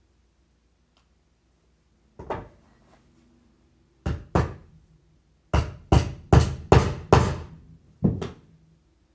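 Hammer knocks on a wheelchair caster wheel's bearings: a single knock, a pair, a quick run of five, then one more.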